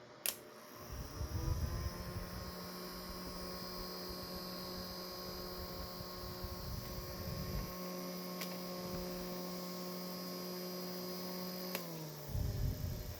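Electric fan switched on with a click, its motor whining up to speed within about a second, then running with a steady hum and whine. About twelve seconds in another click switches it off and the motor winds down.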